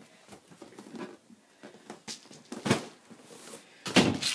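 Handling noises: scattered light rustles and knocks, with two louder thumps, one near the middle and one just before the end.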